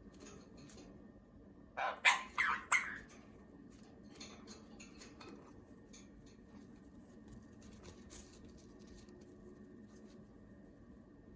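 Pet parrot squawking: four short, loud calls in quick succession about two seconds in, then only faint scattered clicks over a low steady hum.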